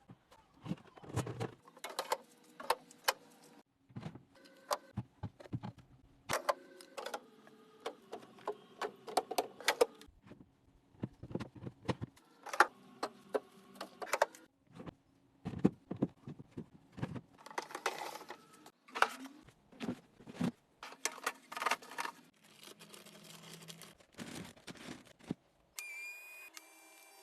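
Hard household items being handled and set down: repeated clinks and clatters, many leaving a short ringing tone, with a cluster of higher ringing notes near the end.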